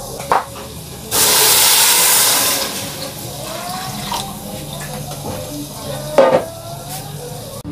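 Water rushing and splashing, loudest for about a second and a half shortly after the start, as water is poured into a cooking pot on a gas stove.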